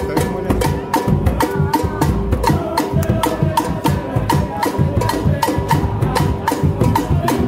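Charanga band playing live: a quick, steady beat of sharp percussion hits under held melody notes.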